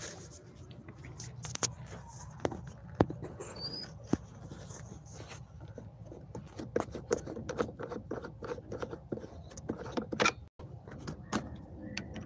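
Handling noise of a camera being strapped into a chest harness close to the microphone: irregular clicks, knocks and rubbing, with a brief high squeak about three seconds in.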